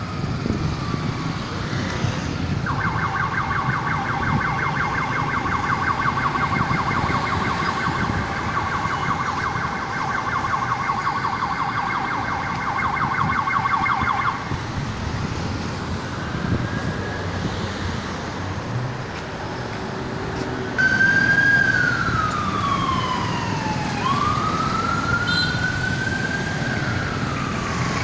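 Emergency vehicle siren over steady street traffic: a fast warbling yelp for about twelve seconds, then after a pause a slow wail that falls, rises and falls again.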